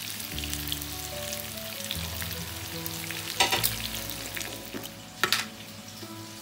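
Chicken pieces frying in oil in a nonstick pan, sizzling with a steady crackle and small pops. There are two louder clicks, about three and a half and five seconds in.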